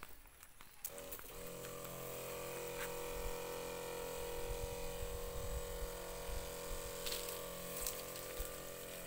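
Kyone battery-powered knapsack sprayer's electric pump switching on about a second in, rising briefly, then running with a steady hum.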